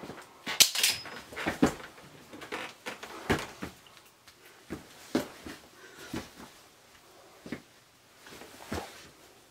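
A scuffle: irregular thumps, bumps and rustles of bodies, feet and the armchair as one person lunges and another scrambles away. The sounds are loudest and densest in the first two seconds, then thin to scattered knocks.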